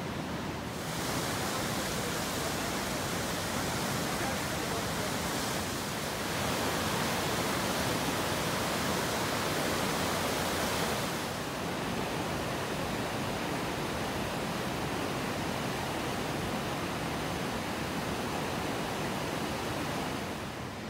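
Rain-swollen river rushing over a weir and through rapids: a steady wash of moving water, loudest in the middle stretch.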